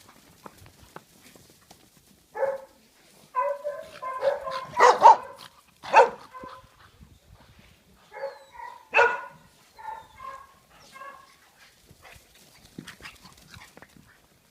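Dog barking repeatedly in short clusters of barks, loudest around five to six seconds in.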